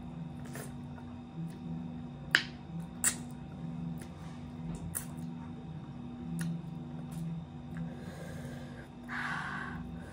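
Close-up eating sounds of fish and rice eaten by hand: sharp lip smacks and mouth clicks while chewing, the loudest about two seconds in. A steady low hum runs underneath, and a short rustle comes near the end.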